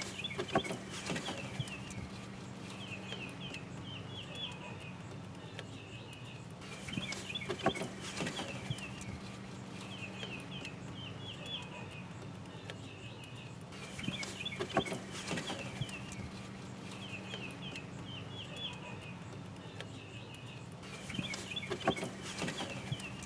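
Birds calling in quick runs of short, high chirps every few seconds, over a steady low hum, with a few faint knocks from hand work on the car's steering parts.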